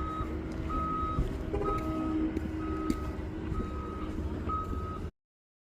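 Backup alarm of a reversing work vehicle: six steady beeps of one tone, about one a second, over a low diesel engine rumble. The sound cuts off suddenly about five seconds in.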